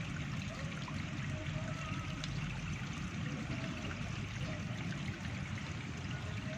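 Steady rush of flowing water, with faint short chirps now and then.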